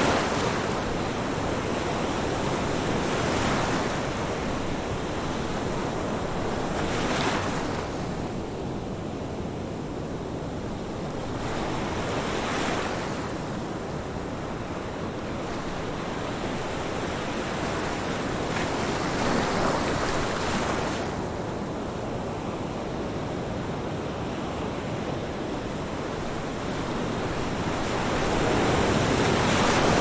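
Ocean surf: a continuous rushing wash of waves, swelling into a louder surge every few seconds as waves break and then ebbing back.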